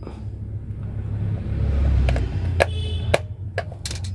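A steady low hum under a handful of sharp clicks and taps from about two seconds in, as hands handle a small plastic controller box and push sensor wires into its screw terminal blocks.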